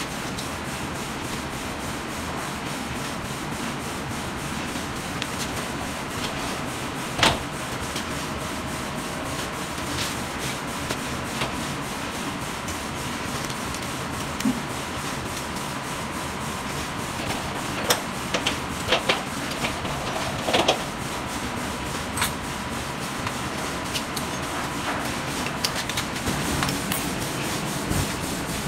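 Scattered metal clicks and knocks of a padlock and its keys being handled on a door latch, the sharpest knock about a quarter of the way in and a run of clicks about two thirds through, over a steady rushing background noise.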